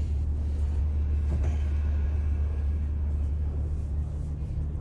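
Steady low rumbling hum of a submarine's interior machinery, deep and even, with no distinct events.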